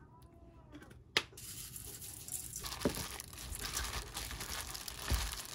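Crinkling and rustling of something crinkly being handled, with a sharp click about a second in and a low thump near the end.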